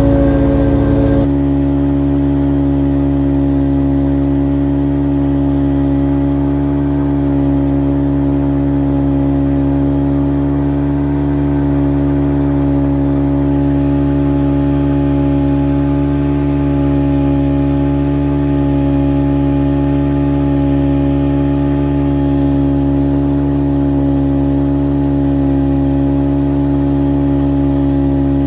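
A small motorboat's engine running at a steady cruising speed, its note holding even. In about the first second there is a slightly louder, different stretch before the note settles.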